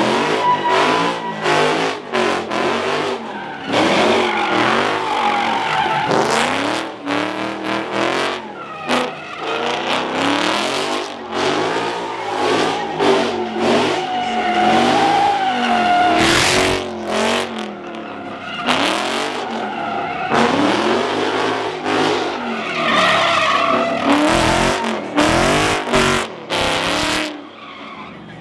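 Car engines revving hard, their pitch rising and falling again and again, with tyres squealing and skidding as the cars slide around the pit.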